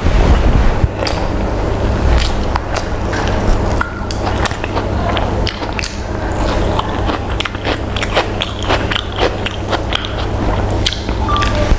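A person eating chicken with their mouth close to the mic: steady biting and chewing, with many small wet clicks and crunches.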